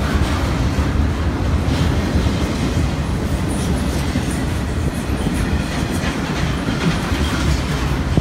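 BNSF intermodal freight train's double-stack well cars rolling past close by: a steady rumble of steel wheels on the rails.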